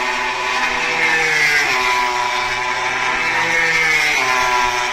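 MotoGP racing motorcycles with 1000 cc engines running hard on track. Several engine notes overlap, and the pitch drops about two seconds in and again about four seconds in.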